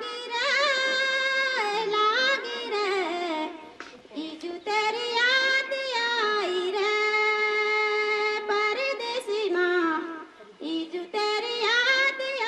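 A woman sings solo into a microphone with no instruments, holding long steady notes and stepping between pitches. She pauses briefly for breath about four seconds in and again near ten seconds.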